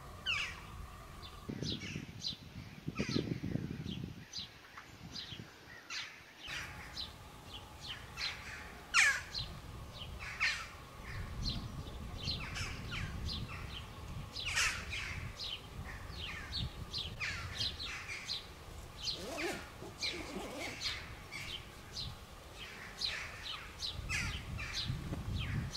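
Songbirds chirping and singing, many short high calls one after another, with stretches of low rumbling noise underneath.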